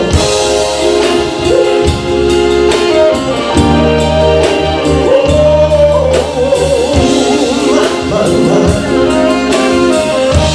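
Live band playing a slow soul ballad: drum kit and held bass notes under a melodic lead line that bends in pitch.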